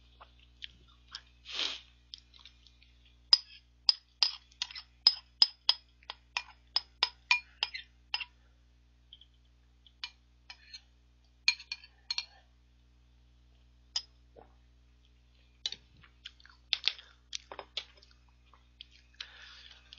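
A spoon clinking and scraping against the inside of a ceramic bowl while the last of the ice cream is eaten, about three quick clinks a second for several seconds, then scattered single clinks. A short breathy noise comes near the start.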